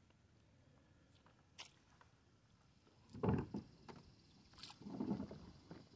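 Close handling noises in a kayak: a sharp click, then two short louder bouts of rustling and knocking as lake weed is pulled off a caught bass and the line.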